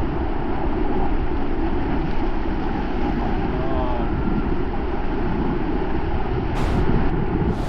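Rushing river water during white-water rafting, with wind buffeting the microphone, a steady loud rumbling noise. A brief sharper hiss comes in near the end.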